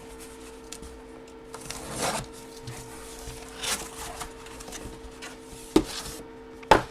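Packaging and cardboard being handled and rustled, with two sharp knocks near the end, over a faint steady hum.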